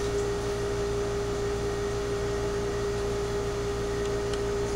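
Steady mechanical hum with one constant mid-pitched tone and a low rumble under it, unchanging throughout.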